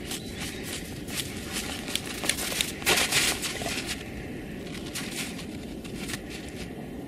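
Dogs' paws digging and scraping into snow and frozen ground: a run of crunching and scratching strokes, loudest about three seconds in, over a steady low rumble.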